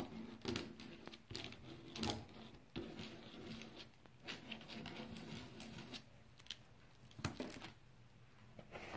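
A comb scraped through soft oil and cold wax paint on a panel, making faint, irregular scratchy strokes as it cuts lines into the wet dark layer.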